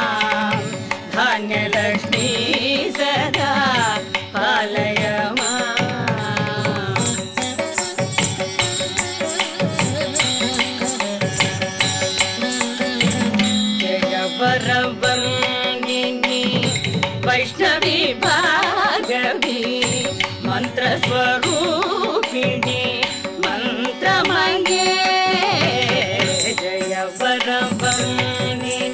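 Carnatic devotional song: female voices singing a Sanskrit stotram over steady hand-drum strokes and a sustained drone.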